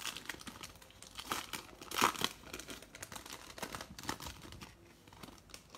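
Foil wrapper of a Bowman baseball card pack being torn open by hand and crinkled: a run of crackles and rustles, loudest about two seconds in.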